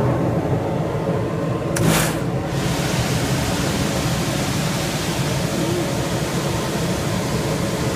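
Steady rushing noise over a low machinery hum, with one short sharp noise about two seconds in.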